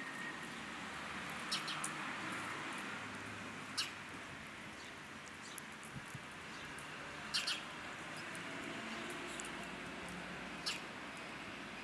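Outdoor street ambience: a steady hiss with about seven short, high chirps scattered through it, two of them close together a little past the middle.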